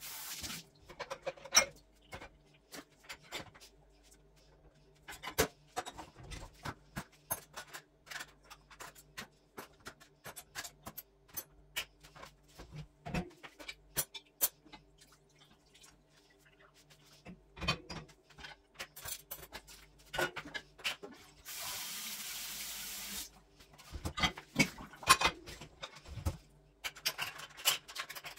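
Kitchen cleaning sounds: scattered clicks, knocks and clatter of items being handled at the counter and sink, with a rush of running water lasting about two seconds roughly three-quarters of the way through. A faint steady hum runs underneath.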